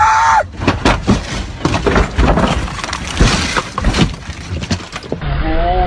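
A car crashing, heard from inside the car: a rapid, irregular series of bangs, crunches and breaking glass lasting about five seconds. A brief shout comes at the very start and a voice near the end.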